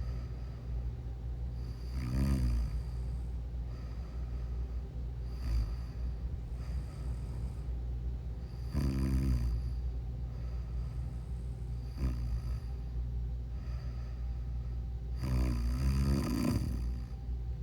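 A sleeping person snoring: three loud snores about seven seconds apart, with softer breath sounds between them, over a steady low hum.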